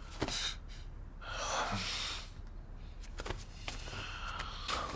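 A single breathy gasp from a person, starting about a second in and lasting about a second, with a few faint clicks around it.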